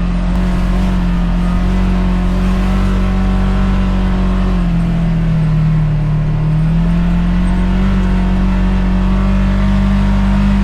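Side-by-side UTV engine running steadily under way, with a drop in revs about five seconds in before picking back up.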